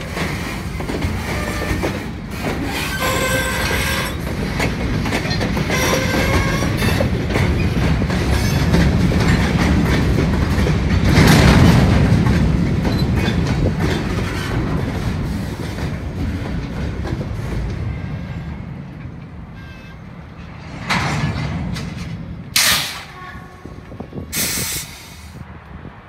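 Freight train of covered hoppers and gondola cars rolling past close by: steady rumble and clatter of steel wheels on the rails, with high wheel squeal in the first several seconds. The sound is loudest about halfway and fades as the cars move off, and three short sharp bursts of noise come near the end.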